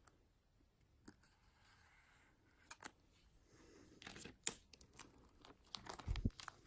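Faint handling of a sealed smartphone box: a few scattered clicks, then from about four seconds in, crinkling and tearing of its plastic seal wrap, with a low thump near the end.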